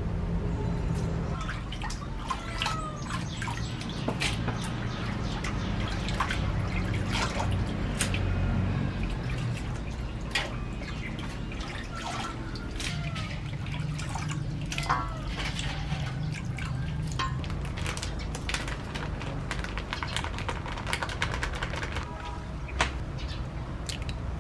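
Wet dripping and squelching with many scattered clicks and a few short high chirps, over a low steady hum.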